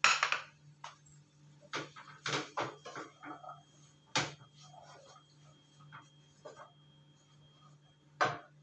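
Wooden spatula knocking and scraping against a pan while stirring a vegetable stir-fry: a few sharp knocks, the loudest right at the start, about four seconds in and near the end, with softer scraping between them.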